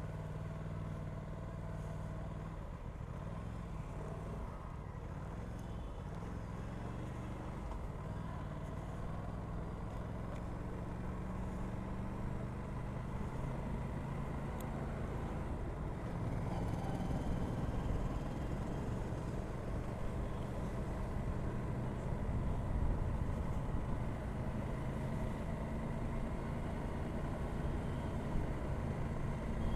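Aprilia RS 457's parallel-twin engine running through its stock exhaust while riding, the engine note shifting up and down with the throttle and getting a little louder in the second half.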